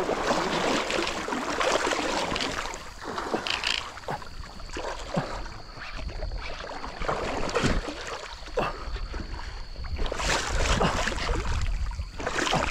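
River water rushing and splashing around a wading angler fighting a hooked salmon, with irregular splashes.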